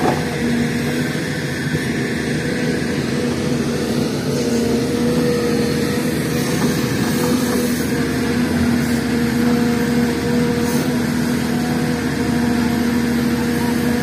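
SDLG hydraulic excavator's diesel engine running steadily under working load as the machine digs and swings. Its hum grows stronger about four seconds in.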